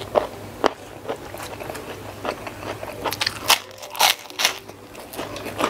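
Close-up biting and chewing of a sambal-coated shrimp with rice, heard as irregular crunchy clicks and mouth smacks.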